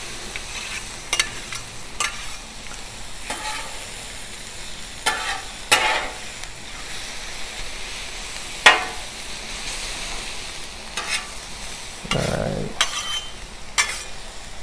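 Vegetables sizzling steadily on a hot steel Blackstone flat-top griddle while two metal spatulas scrape and clack against the cooking surface, chopping and tossing them; the sharpest clack comes about nine seconds in.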